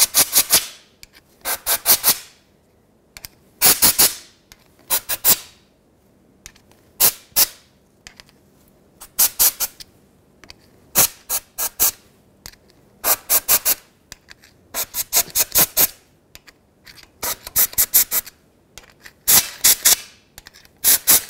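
Compressed-air blow gun firing short hissing blasts in quick clusters every second or two, clearing brake cleaner and oil out of the threaded cover-bolt holes in a differential housing through a shop rag held over each hole.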